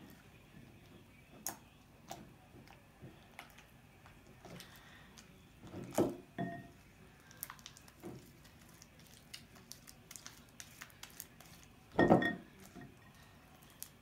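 Homemade slime being handled: a silicone spatula clicking against a glass bowl and the slime squished and pulled by hand, with scattered small clicks and two louder, short sounds about six and twelve seconds in.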